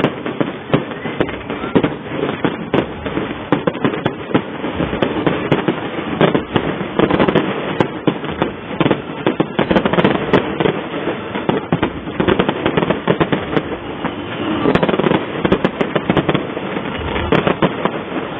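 Fireworks going off in a rapid, unbroken string of crackling pops and bangs.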